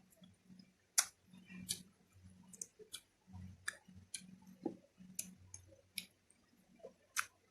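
Close-up eating sounds: a person chewing fried fish and noodles, with about eight sharp, irregular mouth clicks and smacks over soft chewing.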